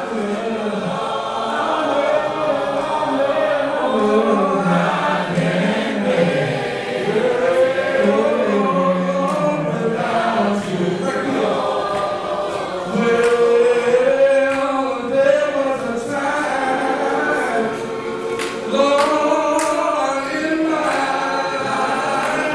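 Two men singing a gospel song together, their voices holding and gliding through long sung lines.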